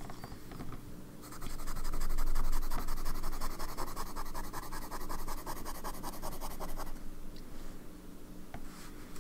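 Fountain pen nib (Sailor 1911S with a zoom nib) scratching across notebook paper in fast back-and-forth zigzag strokes. A dense rhythmic scratching starts about a second in, lasts about six seconds, then gives way to a few faint pen-on-paper scratches.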